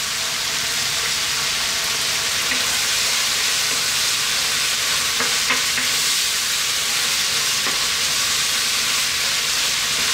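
Bean sprouts sizzling in a hot wok with pork strips and onion in sauce, stirred and tossed with a wooden spatula. The sizzle builds over the first second and then holds steady, with a few light taps of the spatula against the pan.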